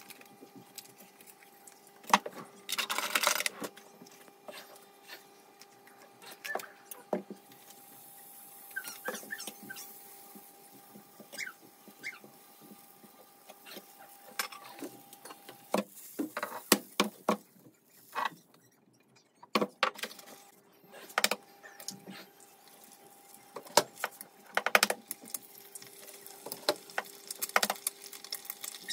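Butter sizzling in a nonstick frying pan on an induction hob, then two eggs frying, over a steady hum from the hob. Scattered sharp taps and knocks come from eggs being cracked and utensils handled.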